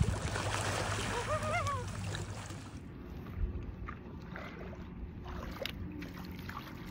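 Steady water noise at a lakeshore with a short, high wavering call, then, after an abrupt change, quieter water lapping around a stand-up paddleboard with a few light knocks.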